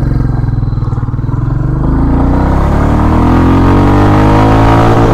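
Royal Enfield Classic 350's single-cylinder engine accelerating hard in first gear, its pitch rising steadily as it revs out toward the top of the gear.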